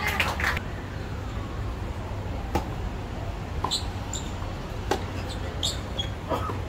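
Sharp knocks of a tennis ball on a racket or on the hard court, three of them a couple of seconds apart, with a few short, high squeaks in between.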